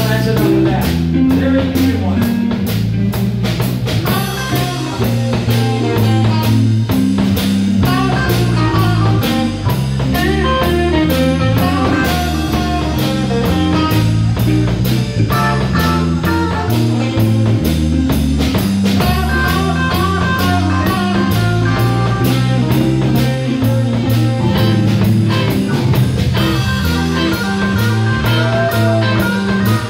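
Live band playing a blues jam: electric guitars over a walking electric bass and a drum kit.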